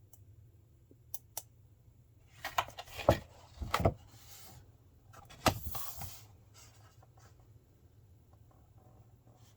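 Typing on a Logitech G513 Carbon mechanical keyboard with blue clicky switches, at an uneven pace. Two lone key clicks come about a second in, then a quick flurry of loud keystrokes around three to four seconds in, one more hard strike near the middle, and light scattered taps after it.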